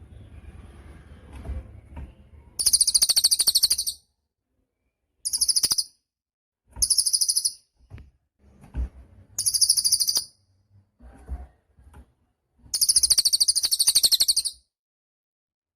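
A cililin songbird singing in five loud, fast, high-pitched trills, the first starting about three seconds in and the last and longest near the end, with pauses of one to three seconds between them.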